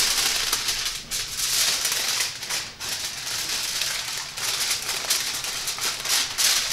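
Aluminium foil crinkling and crackling as it is folded and crimped shut into a cooking packet, with a couple of brief pauses.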